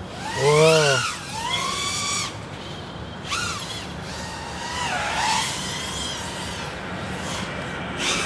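TANQ S 3.5-inch micro FPV quad's motors and props whining, the pitch swooping up and down with quick throttle blips, loudest in a sharp rise-and-fall about half a second to one second in.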